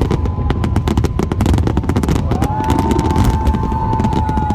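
Fireworks crackling in a dense, rapid volley of sharp bangs that thins out about halfway through. A steady high tone sets in at that point and holds to the end.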